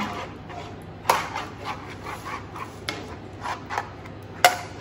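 Metal spoon scraping and tapping against a metal baking tray while spreading pasta sauce, with scattered light ticks and two sharper clinks, one about a second in and a louder one near the end.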